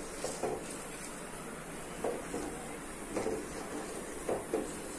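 Steel spoon stirring milk in a stainless steel pot, scraping and tapping against the pot's sides and bottom a few times.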